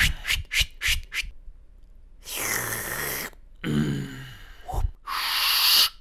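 Mouth-made cartoon sound effects: a quick run of about five sharp clicks in the first second, then breathy, scraping hisses, one with a low groan in it, and a last loud hiss near the end.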